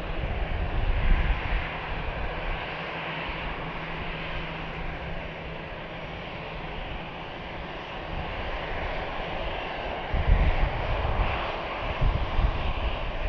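Airbus A320-214's CFM56 turbofan engines running at low taxi power: a steady jet whine and rush, with heavier low rumbling from about ten seconds in.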